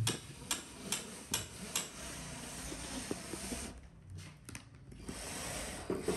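A few light clicks, about two a second, then a cordless drill driver running in two short spells, driving screws up into the drop-ceiling board.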